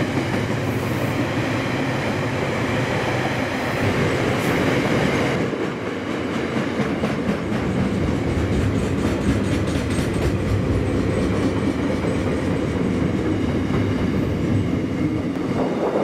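Freight train passing close by: a loud, steady rumble of wheels on rail. From about six seconds in, a regular clickety-clack of the wagon wheels over rail joints runs through it.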